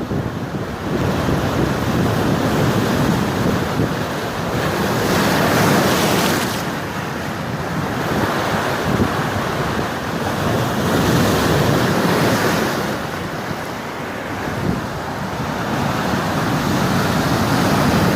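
Storm wind blowing hard across the microphone, with lake waves washing against a rocky shore. The noise swells and eases in gusts, with louder surges about five and eleven seconds in.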